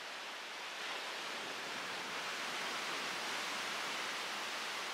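Ocean surf breaking and washing up a sandy beach: a steady rushing noise that grows a little louder about a second in.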